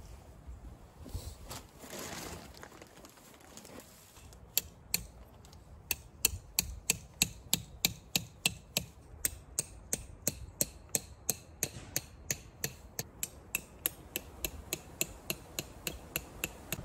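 A hammer striking a tent stake into the ground, starting about four seconds in and going on in a steady run of sharp strikes, about three a second.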